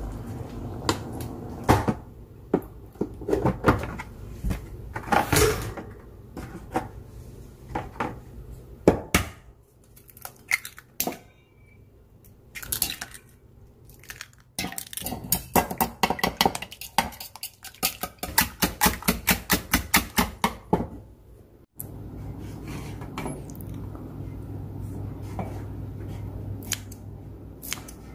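Kitchen utensils clinking and knocking against bowls and dishes as food is prepared, with scattered single knocks, and a quick, even run of strokes, about four a second, from about halfway through for several seconds.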